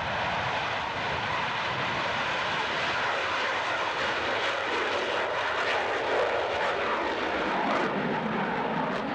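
Twin-engine F/A-18 fighter jet running at high power as it takes off and flies low past: a steady jet roar, with crackling in the second half.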